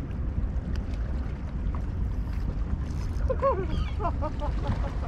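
Steady low rumble of wind on the microphone beside the water, with waves faintly under it. From about three seconds in, faint pitched sounds rise and fall over it.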